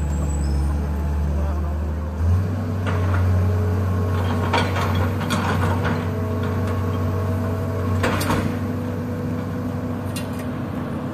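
Hitachi hydraulic excavator's diesel engine running, its pitch stepping up about two seconds in as the boom works and dropping back near eight seconds, with a few metal clinks and knocks.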